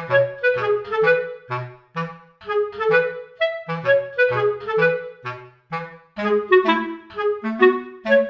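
Background music: a melody of short, detached notes over a bouncing bass line in an even rhythm.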